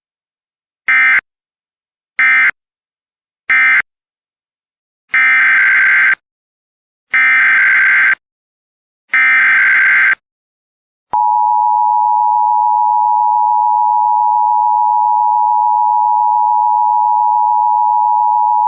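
Emergency Alert System data tones: three short screeching digital bursts that close one message, then three longer bursts that open the next, followed about 11 s in by the steady two-tone EAS attention signal.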